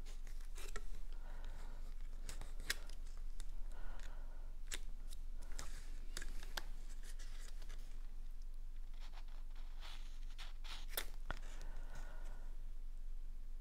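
Cardstock being handled and pressed down on a tabletop: irregular sharp paper clicks and short rustles.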